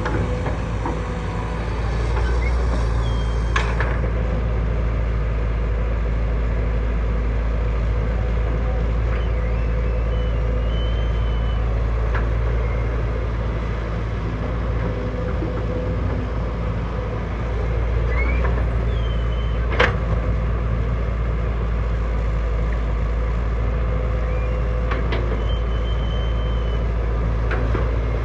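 Heavy diesel earthmoving machinery running steadily with a deep rumble, with a few sharp metallic knocks. The loudest knock comes about two-thirds of the way through.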